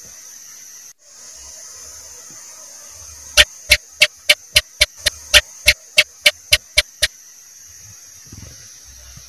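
House gecko (cicak) calling: a run of about fourteen sharp chirps, three to four a second, starting about three and a half seconds in and lasting about four seconds, over a steady hiss.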